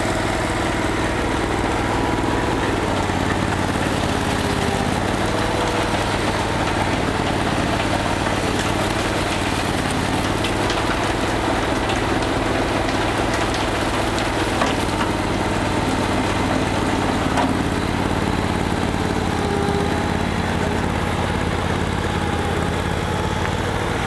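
Dingo K9-3 mini skid steer's engine running steadily close by, together with the Ford 550 backhoe's engine powering the hydraulic drive of a Teagle Spiromix concrete mixer as the mixer discharges a batch of concrete into the loader's barrow.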